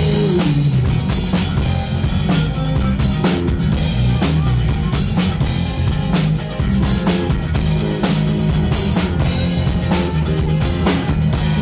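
Live rock band playing an instrumental passage: electric guitar over a steady drum-kit beat, with no singing.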